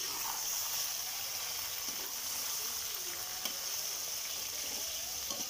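Raw chicken pieces sizzling steadily in hot oil with browned onions in a stainless steel pan, stirred with a metal spatula that scrapes and clicks against the pan a few times.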